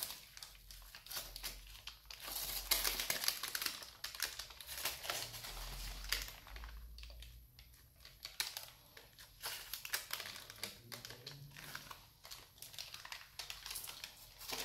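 Parchment paper being peeled slowly off the back of a freshly baked chocolate sponge sheet, rustling and crinkling in uneven bursts, loudest about two to three seconds in.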